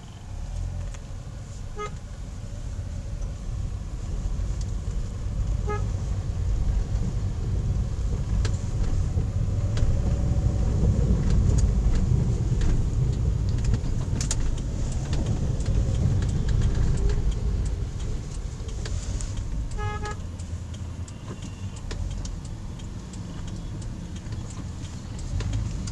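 Strong sandstorm wind buffeting the microphone as a heavy low rumble that swells and peaks midway. Short vehicle horn toots sound four times, the last near the end.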